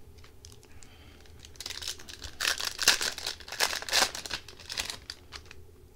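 Foil Upper Deck hockey card pack crinkling and tearing open by hand: a dense run of crackles starts about a second and a half in, is loudest around three to four seconds in, and dies away near the end.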